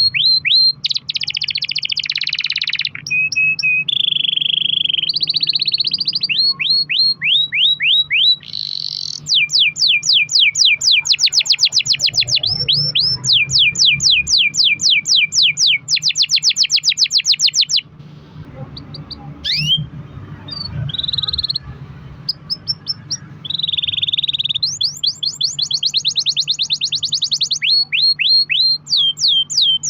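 Canary singing in long rolls: runs of quick, evenly repeated high notes, each run lasting a few seconds, with a pause of several seconds in the middle.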